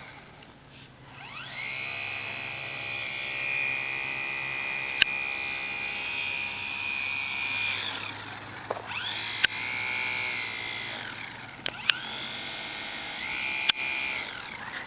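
Small RC model plane's motor and propeller whining up to a high pitch, holding, and winding down three times: a long run-up, then two shorter bursts of throttle as the plane moves on the asphalt. A few sharp clicks sound during the runs.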